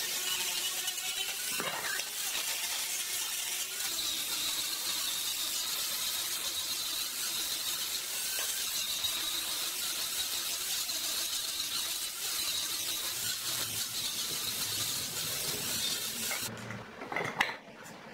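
Corded angle grinder with a sanding disc running against a peeled round log, a steady high whine with hiss as it sands the wood surface smooth. It cuts off about a second and a half before the end, followed by a few clicks.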